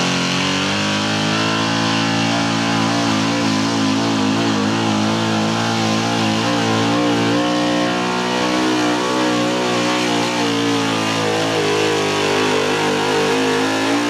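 Mid-1960s Ford pickup's engine at full throttle, dragging a weight-transfer pulling sled. The pitch climbs a little in the first second, then holds high and steady under the load.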